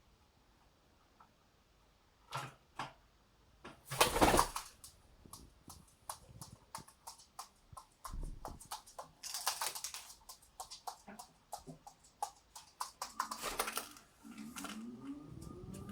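Scattered clicks and rustling from a pigeon moving about, with a loud rustle about four seconds in. Near the end the pigeon begins cooing.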